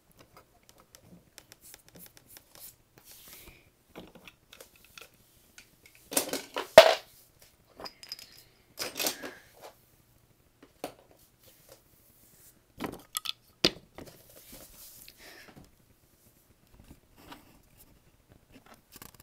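Wooden toy trains and track being handled by hand: light clicks and knocks, with louder wooden clatters about six, nine and thirteen seconds in.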